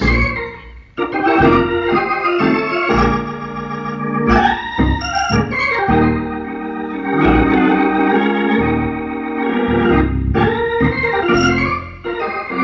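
Hammond organ played live: full held chords over low bass notes, changing every second or so, with a short break about a second in.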